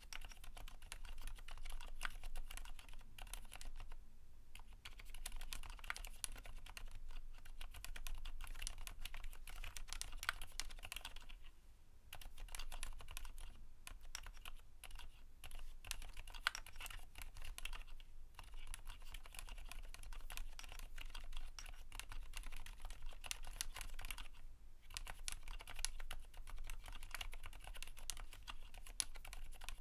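Continuous fast typing on a Keychron Q1 mechanical keyboard with lubed Cherry MX Silent Black linear switches and PBT keycaps: a dense run of soft, damped keystrokes, broken by short pauses a few times.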